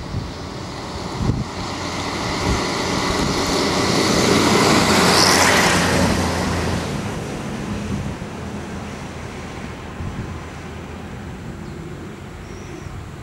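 Vintage military truck driving past close by: its engine and tyre noise build to a peak about five seconds in and fade as it goes by, while the next army truck's engine runs steadily on its approach.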